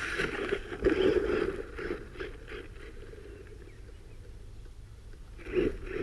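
Electric RC monster truck driving over soft dirt, its tyres scrabbling and kicking up soil with scattered clicks and knocks. It comes in spurts: busy for about the first two seconds, quieter in the middle, with another burst near the end.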